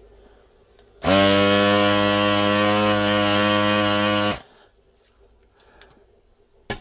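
Electric vacuum desoldering gun's built-in suction pump buzzing steadily for about three seconds as it draws molten solder off a MOSFET's pins. It starts suddenly about a second in and cuts off abruptly when the trigger is released.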